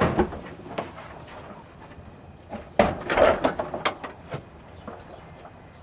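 Knocks, clicks and clatter of objects being handled and rummaged through, with a louder burst of clatter about three seconds in.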